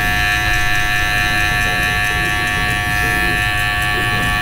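Cordless electric hair clipper running with a steady buzz while trimming short hair close to the skin along the hairline.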